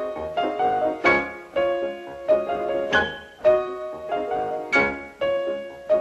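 Piano music: a passage of struck chords and single notes, with strong accented chords roughly every second and lighter notes between them.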